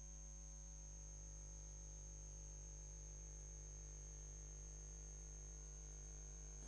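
Near silence: a faint, steady hum with a thin high whine and nothing else.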